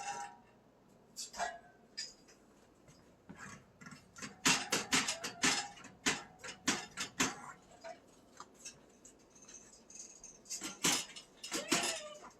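Metal clattering and rattling of a heavy-duty steel dog crate: a run of sharp clinks and knocks in two flurries, one in the middle and one near the end.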